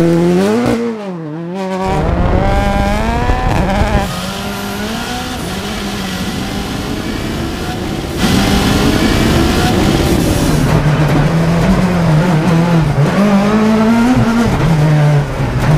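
VW Beetle GRC rally car's turbocharged four-cylinder engine revving hard under acceleration, its pitch climbing and dropping repeatedly through gear changes and lifts.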